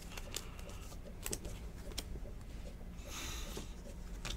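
Trading cards being handled: light clicks and ticks of card and plastic sleeve, and a short rustle of cards sliding against each other about three seconds in.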